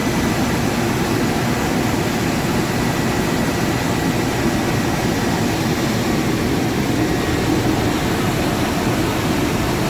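1995 Chevrolet K1500's 5.7-litre 350 small-block V8 with throttle-body injection, idling steadily while being checked for a knock.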